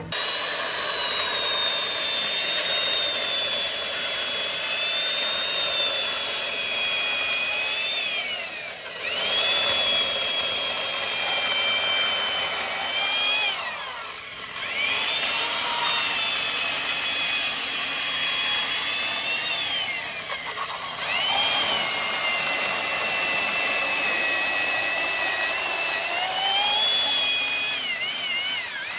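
High-speed handheld electric power tool working wood: a steady high whine that sags and wavers under load, dipping and picking back up three times.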